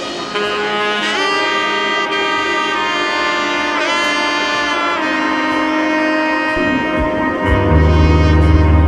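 Background instrumental music: a held melody line that slides up and down in pitch, with a deep bass note coming in near the end.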